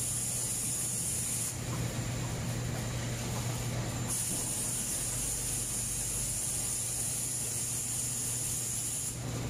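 Steady running noise of a bag-packing and conveyor line: a constant low motor hum under a high hiss. The hiss drops out for a couple of seconds about a second and a half in, then returns.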